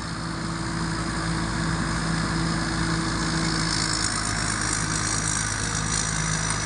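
Hino J08C turbo diesel engine of a rice combine harvester running steadily, with a high turbocharger whine over the low engine note that rises slightly in pitch after about four seconds.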